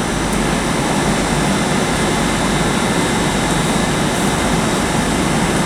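Steady hum and hiss of a Great Western Railway Class 800 train standing at the platform, waiting to depart.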